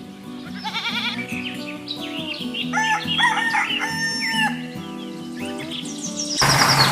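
A rooster crowing, two long calls in the middle, with clucking and music underneath. About six seconds in, a loud steady mechanical noise cuts in suddenly.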